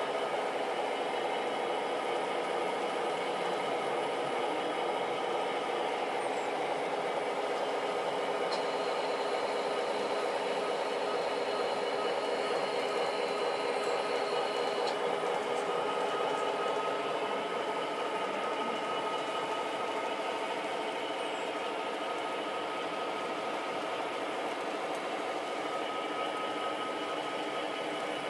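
Model trains running on a layout: a steady mechanical whir of small electric motors and wheels on track. A faint, high, steady tone is held for several seconds in the middle.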